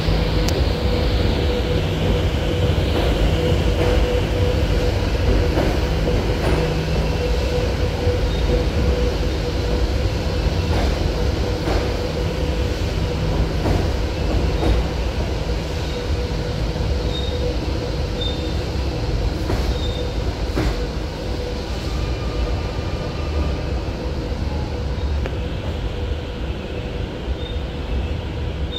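Buenos Aires Subte Line E train running, a steady low rumble with a constant hum. Scattered clicks run through it, and from about a third of the way in there are short high wheel squeals.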